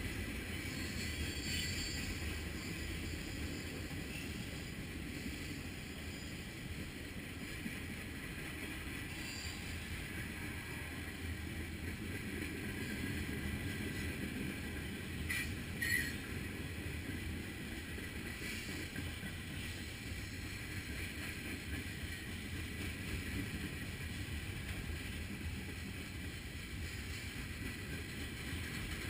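Freight cars rolling past: a steady rumble of steel wheels on the rails, with one short sharp metallic sound about halfway through.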